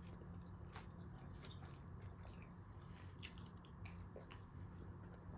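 Faint close-up chewing of fast food: soft wet mouth sounds and small irregular clicks.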